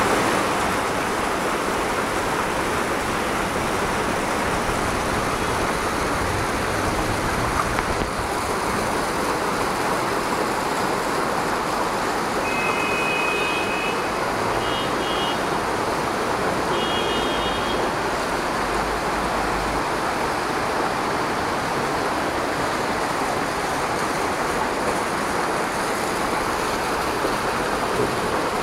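Muddy floodwater rushing along a street and past parked cars, a steady, unbroken rush of running water.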